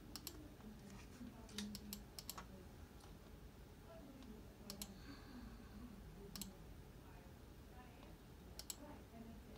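Scattered sharp clicks of a computer mouse working a software menu and output view, several of them in quick pairs, over faint room hum.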